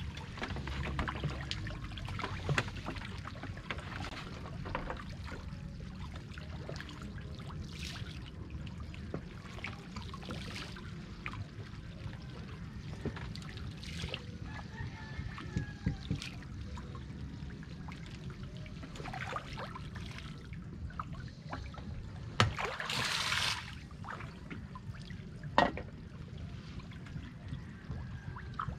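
Water trickling and sloshing with many small scattered clicks and pops, over a steady low rumble. About 22 seconds in comes a louder rush lasting about a second, followed shortly by a sharp click.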